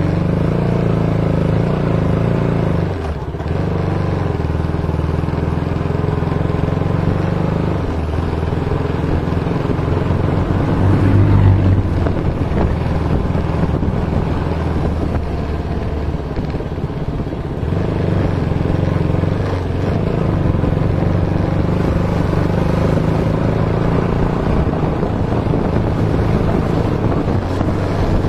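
Motorcycle engine running under way at low speed, heard from the bike itself. Its note dips briefly about three seconds in and rises again around eleven to twelve seconds in as the throttle changes.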